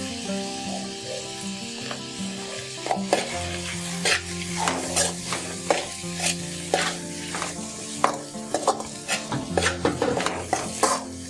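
Steel spatula stirring and scraping a potato, onion and pea mixture frying in oil in a metal kadai, the oil sizzling throughout. From about three seconds in, the spatula makes repeated scrapes and taps against the pan, one or two a second.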